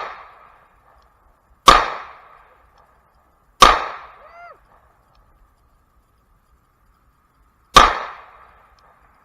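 Three single pistol shots: two about two seconds apart, then a third about four seconds later, each a sharp crack with a short decaying tail.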